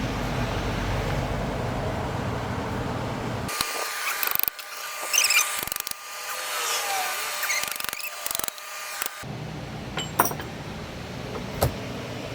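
Scattered metallic clicks, clinks and scraping from tools and small metal parts being handled while a starter motor is taken apart, over a steady low hum. Single sharp clicks come near the end.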